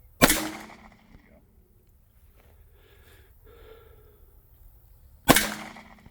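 Two shots from a Glock pistol, about five seconds apart, each a sharp crack with a ringing tail that dies away over about a second.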